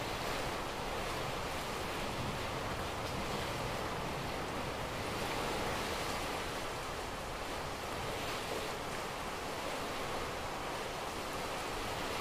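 Torrential rain driven by strong wind, a steady rushing noise, heard through window glass.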